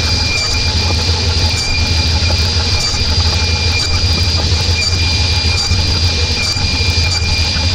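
Table saw running, its blade giving a steady high whine over a low hum, as small pieces of MDF are crosscut on a sled.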